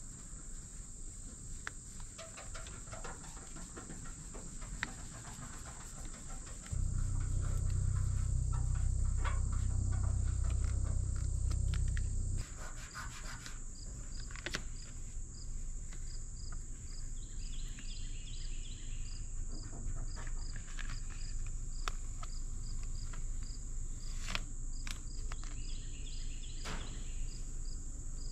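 Insects singing outdoors: a steady high-pitched drone with a chirp repeating about twice a second, over scattered light crinkles and taps of vinyl decal backing paper being peeled and pressed onto a steel panel. A low rumble comes in about seven seconds in and cuts off abruptly about five seconds later.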